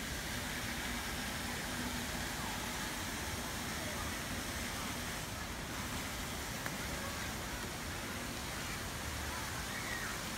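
Steady outdoor background hiss with faint, distant voices of people.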